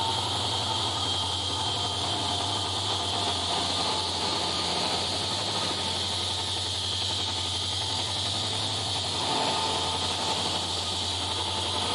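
Several Indian Railways EMD WDx4D diesel locomotives, with 16-cylinder two-stroke engines, running past together: a steady engine drone under a high turbocharger whine of the jet-engine kind.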